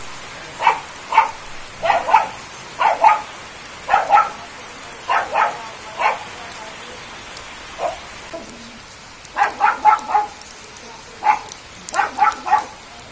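Heavy rain pouring steadily. A dog barks over it again and again in short runs of two to four barks; the barks are the loudest sounds.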